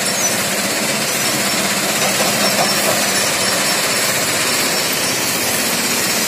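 Stone crusher plant running: a steady, loud din of the crushing machinery and its conveyor belts carrying crushed gravel.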